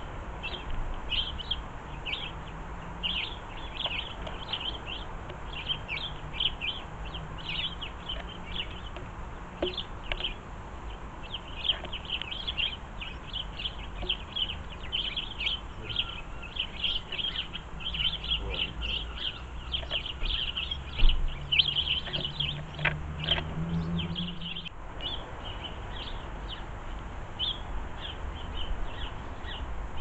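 Garden birds chirping busily: a continuous stream of short, high chirps, several a second, over a low background hum. One sharp tap stands out about two-thirds of the way through.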